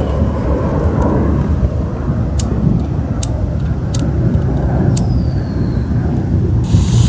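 Fireworks going off under a continuous low rumble: a series of sharp cracks roughly a second apart, a short falling whistle after one of them, and a loud hiss starting near the end.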